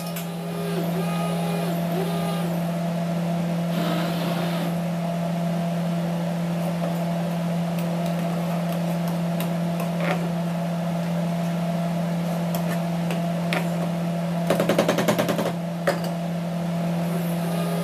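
Hand-held immersion blender running steadily with a low motor hum while it purées thick rice and fish porridge in a pot, with a brief rapid rattle near the end.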